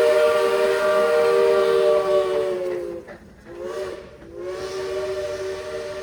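Steam locomotive chime whistle sounding a chord of several tones at once in three blasts. First a long blast that sags in pitch as it closes about three seconds in, then a short toot, then another long blast that rises in pitch as the valve opens.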